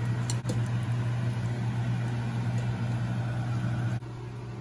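Steady low mechanical hum in a kitchen, with a couple of sharp clinks from a steel ladle against the pot and bowl about half a second in as soup is ladled out. The hum drops suddenly about four seconds in.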